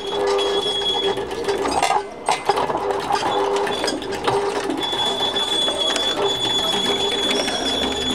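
Roller chain and sprocket drive of a kinetic art machine running: a continuous clicking rattle of chain links over the teeth, over a steady mechanical tone, with a thin high whine that drops out and comes back about five seconds in. There is a brief dip in the noise about two seconds in.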